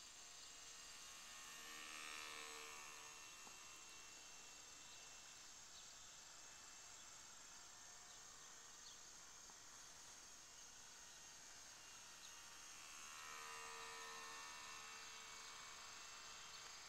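Faint whine of a model biplane's electric motor and propeller, swelling twice as it passes, about two seconds in and again around thirteen seconds. A steady high insect chorus runs underneath.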